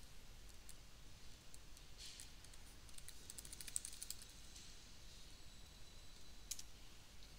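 Faint scattered clicking, with a quick run of small clicks about two to four seconds in and one sharper click near the end, over a faint hiss.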